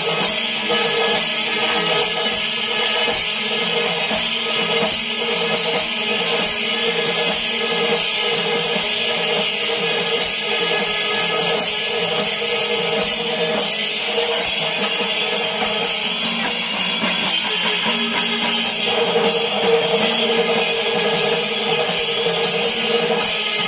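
Music with continuous jingling, tambourine-like percussion over sustained held tones, at a steady level.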